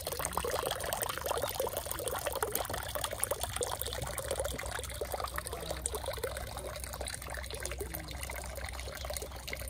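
Thin stream of water from a bamboo spout pouring into a moss-covered stone water basin, a steady splashing trickle.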